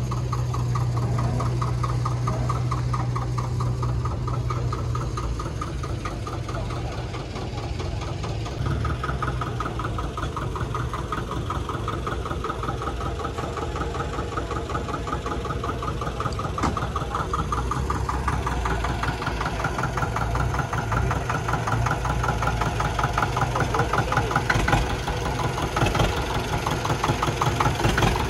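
Steam engine driving a threshing machine: a steady machine hum with an even, rapid rhythmic beat that grows louder over the last several seconds.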